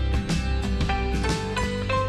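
Background music: an instrumental with plucked guitar notes over a steady beat.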